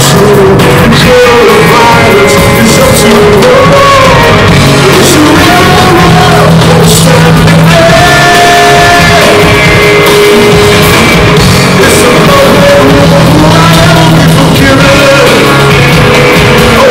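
Live rock band playing with a singer's melody over guitar, bass and drums, heard in a large hall and recorded very loud.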